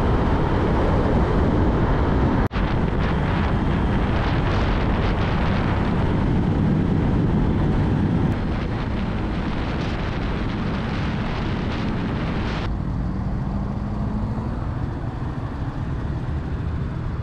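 Motorcycle on the move: wind rushing over the microphone with the engine and tyre noise beneath it. About two-thirds of the way through it turns quieter, leaving a low engine hum.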